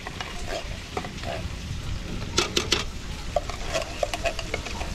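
Stirring in a cooking pot: a utensil scraping and knocking against the pot in irregular clicks, with a quick cluster of knocks about two and a half seconds in, over a low steady rumble.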